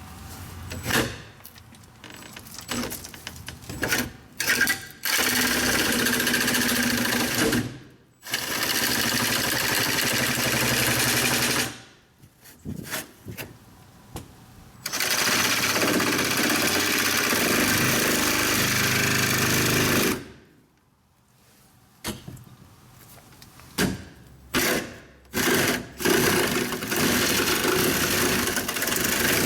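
Reciprocating saw cutting the opening for a dog door, in several runs of a few seconds each, stopping and starting again with short trigger blips in between.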